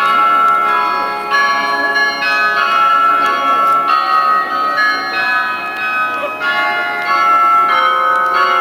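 Several church bells ringing together in a peal, new strokes coming every second or so while the earlier ones still ring on, so their tones overlap and blend.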